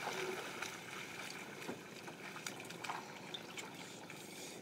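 Water trickling and splashing around a small boat as a fishing net is handled with a wooden pole, with a few short knocks scattered through.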